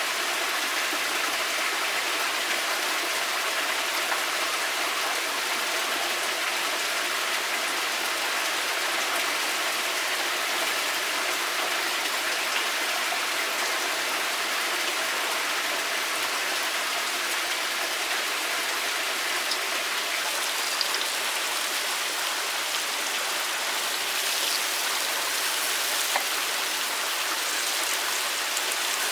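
Running water: a steady, even rush with no change in level, broken only by a few faint ticks.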